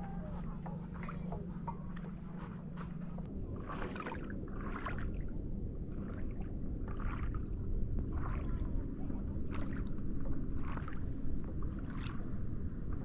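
Paddle strokes from a stand-up paddleboard, the blade dipping and pulling through lake water with a soft splash about once a second, over a steady low rumble. A low note carried over from background music fades out about three seconds in, before the strokes become clear.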